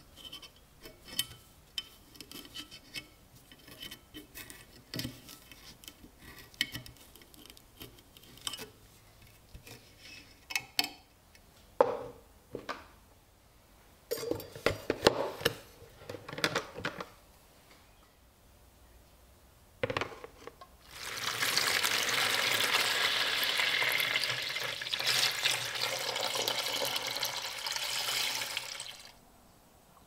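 Small clicks and rustles of wire and metal being handled, then hollow knocks of a plastic tub. From about a third of the way from the end, water is poured steadily into the plastic tub for about eight seconds, filling it, then stops.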